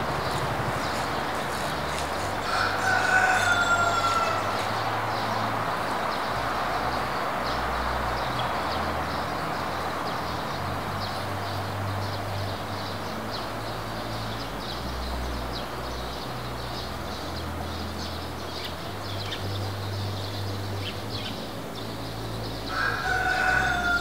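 A distant rooster crowing twice, once a few seconds in and again near the end, each a held call of about a second and a half that falls slightly at its close. Between the crows there is a steady hush of outdoor noise with a low rumble.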